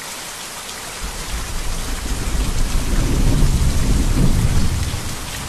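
Steady heavy rain with rolling thunder: a low rumble swells in about a second in, is loudest past the middle, and dies away near the end.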